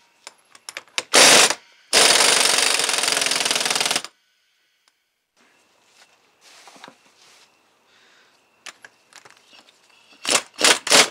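Impact wrench hammering the hub nut tight on a hydrostatic transmission's splined axle: a short burst about a second in, then about two seconds of steady hammering, and a few short bursts near the end.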